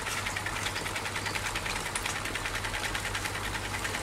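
Submersible pump running inside an aeroponic propagator bucket, driving its rotating spray head: a steady hum with a fast, even pulsing.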